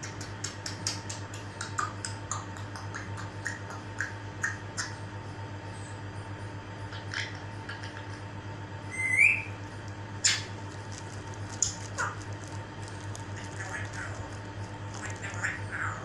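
African grey parrot making a run of quick clicks and short chirps, then a loud, short rising whistle about nine seconds in, followed by a sharp click and scattered squawks.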